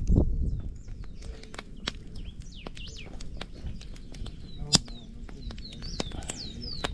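Small birds chirping in short rising and falling whistles, over scattered sharp crackles and pops from a wood fire and pork steaks starting to sizzle on the grill grate. One louder click comes about halfway through.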